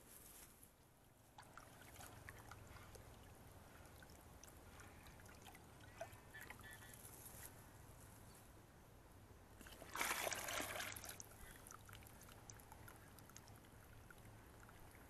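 Flour batter poured from a steel bowl into hot sugar syrup in an iron kadai: one loud rushing splash about ten seconds in, lasting just over a second, with only faint ticking around it. The syrup has been boiled to the one-string stage for halwa.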